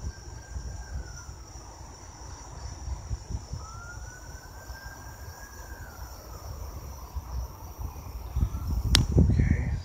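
Night insects, crickets, chirring steadily at a high pitch, with a faint distant wailing tone that rises and falls twice. Low rumbling from the phone microphone being handled runs underneath and swells loudest near the end, just after a sharp click.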